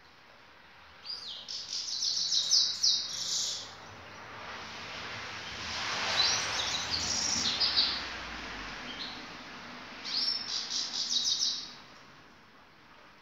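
Grey-headed goldfinch singing: three bursts of rapid, high twittering song, each about two seconds long. A broad rushing noise swells and fades under the middle phrase.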